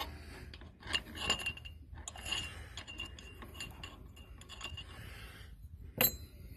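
Light metallic clicks and scrapes of fingers working the drain screw on a small engine's carburetor float bowl, draining the leftover fuel. The sharpest click comes about six seconds in.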